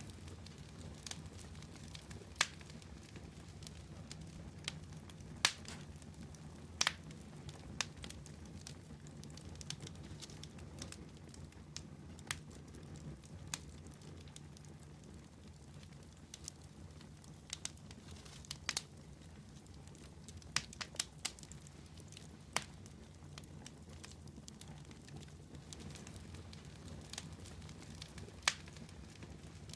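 Wood campfire burning and crackling, with irregular sharp pops and snaps a second or a few seconds apart over a low steady background.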